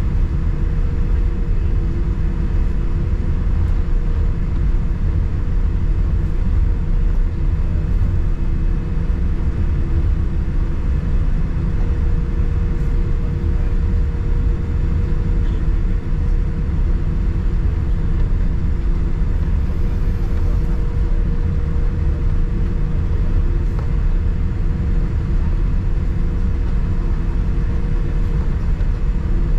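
Boeing 787-9 Dreamliner cabin noise heard from a window seat: a constant low rumble with a steady engine hum, holding the same pitch and level throughout.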